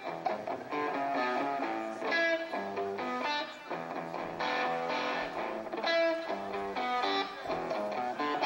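Electric guitar playing a picked chord pattern, the notes changing several times a second.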